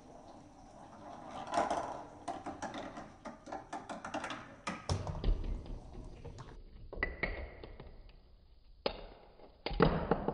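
Marbles clicking and rattling through a plastic marble-run track in a quick run of taps. Later, a few sharp knocks followed by a low rolling rumble as a ball drops onto and runs down a cardboard ramp.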